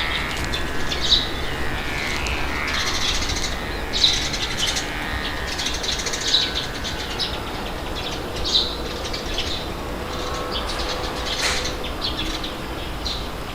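Birds chirping in short, repeated calls every second or so over a steady rush of wind.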